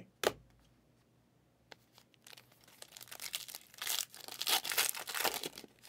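A sealed trading-card pack's wrapper being torn open and crinkled in the hands, a dense crackling that builds about two seconds in and is strongest near the end. A single knock comes just after the start.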